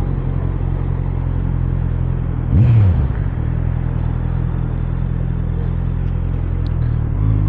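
Honda CBR650R's inline-four engine running steadily at low revs, with one quick throttle blip that rises and falls about two and a half seconds in.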